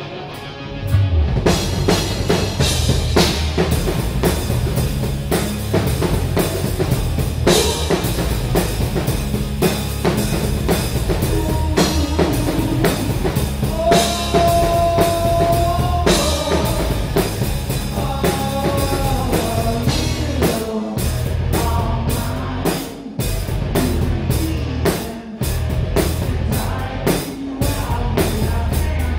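Live rock band playing: the full band with drum kit comes in about a second in, with electric guitar and steady drumming. A single guitar note is held in the middle, and the band briefly drops out twice near the end.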